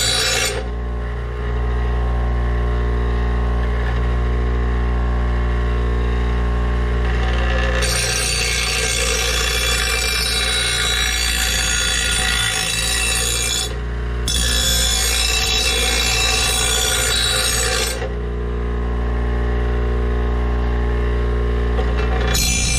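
Bench grinder motor humming steadily while a steel mower blade is pressed against the spinning wheel to sharpen its dull edge, a harsh grinding rasp with each pass. The grinding comes briefly at the start, again from about a third of the way in for some ten seconds with one short break, and once more just before the end, with only the grinder's hum in between.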